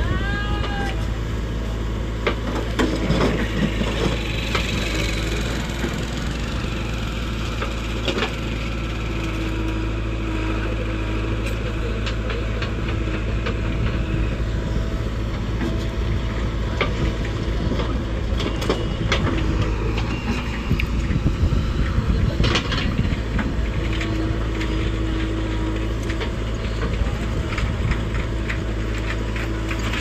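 JCB 3DX backhoe loader at work: its diesel engine runs steadily, its note rising in spells as the backhoe works. The bucket digs into dry soil with scraping and knocking as clods break and fall.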